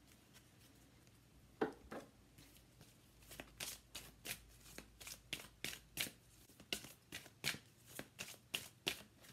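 A deck of oracle cards being shuffled by hand: one louder clatter about a second and a half in, then a run of short card snaps at about three a second.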